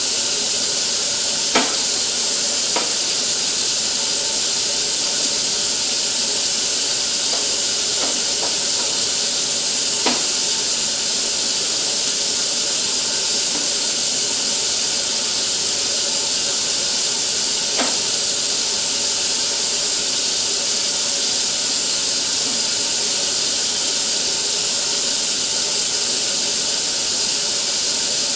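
Steady high hiss throughout, with a few faint ticks or knocks scattered through it.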